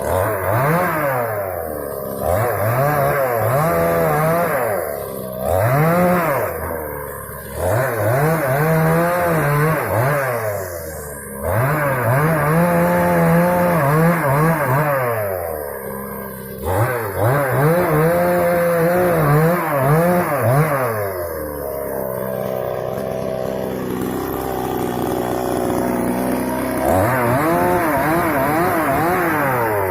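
Moto Yama two-stroke chainsaw revved up and let back down again and again while cutting dry wood, each burst held at high speed for a second or several. About two-thirds through it runs for a few seconds at lower, steadier speed before revving up again near the end.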